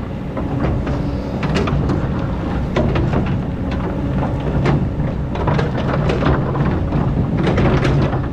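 Excavator's diesel engine running under load, with repeated clanks and scraping from the bucket working in sand.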